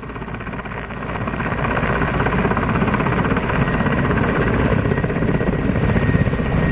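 Helicopter engine and rotor running with a fast, steady throb, growing louder over the first couple of seconds and then holding steady, with a faint high whine over it.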